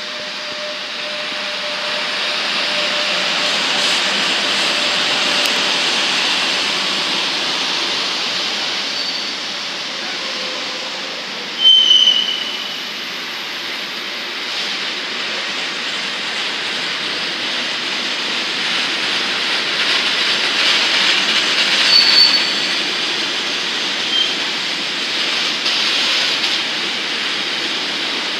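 Freight train of container and tank-container wagons rolling past at steady speed. A few short, high-pitched wheel squeals cut through, the loudest about twelve seconds in and another about twenty-two seconds in.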